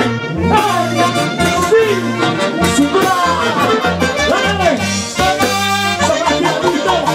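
Lively Latin American dance music: a melody line with sliding, wavering notes over a steady bass and percussion.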